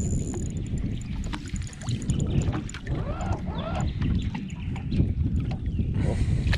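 Water slapping and splashing against a small boat's hull while a landing net is worked in the water, with wind rumbling on the microphone. Near the end comes a brighter rush of splashing and dripping as the net starts to come up.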